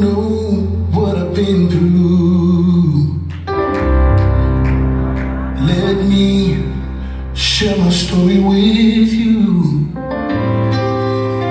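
A song played over loudspeakers: a voice singing long, held phrases over keyboard and a deep, sustained bass, with short pauses in the singing between phrases.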